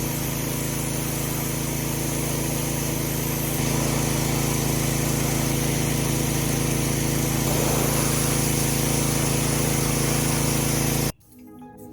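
Pressure washer running steadily, its motor droning under the hiss of the spray, while an exhaust pipe is washed; it gets slightly louder about a third of the way in and cuts off abruptly near the end.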